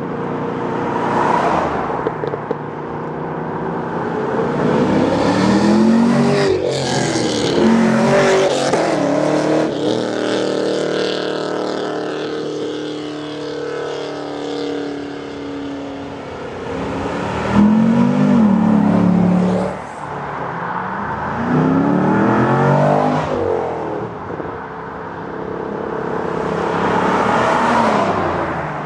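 Chevrolet Camaros driving past one after another, each engine revving up as the car accelerates away, with several rising and falling engine notes.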